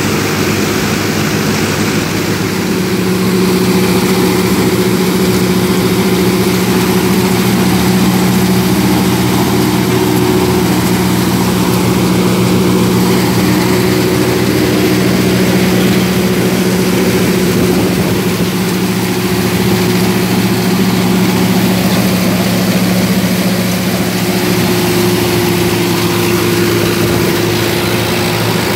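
Sonalika 750 tractor's diesel engine running steadily under load, driving a PTO-powered straw reaper that is cutting and gathering stubble into straw. The machine gives a loud, steady drone with a constant hum.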